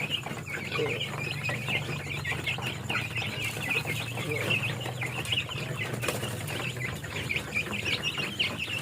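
A crowd of young chicks peeping without pause, many short high cheeps overlapping, over a steady low hum.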